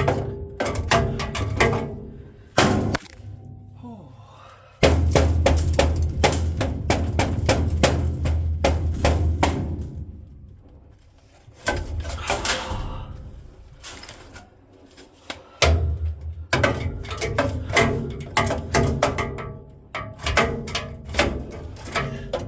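Irregular metal clanking, knocking and scraping inside a furnace cabinet as melted plastic and debris are worked out of the heat exchanger by hand, with a steady low hum through long stretches.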